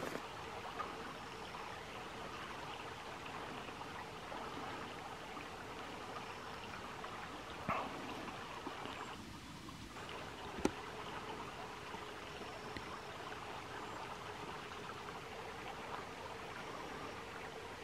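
A stream running steadily, with two brief sharp clicks about eight and eleven seconds in.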